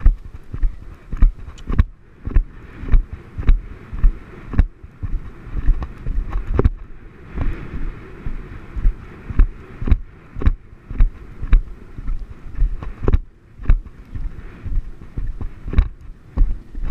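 A horse's hooves thudding on turf in a steady stride rhythm, a little under two beats a second, with the rider-mounted camera jolting on each stride. Wind rushes over the microphone.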